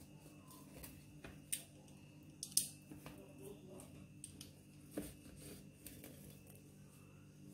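Pizza cutter wheel rolling through set semolina halwa in a metal tray: faint scraping with a few sharp clicks, the loudest about two and a half seconds in.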